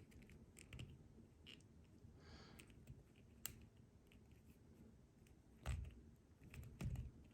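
Faint clicks and taps of a plastic action figure being handled as its joints are moved, with two louder short knocks near the end.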